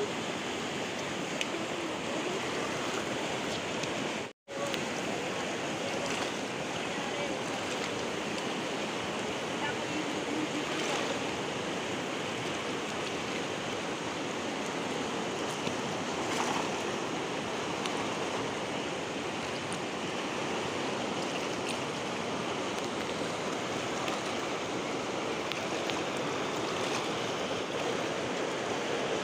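Steady rushing of a swollen, muddy river's current along the bank. The sound cuts out completely for a moment about four seconds in.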